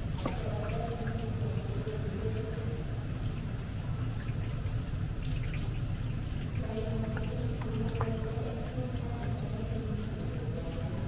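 Tteokbokki sauce bubbling and dripping in a cooking pan, with small clicks, over a steady low rumble. A wavering hum comes in twice, near the start and again past the middle.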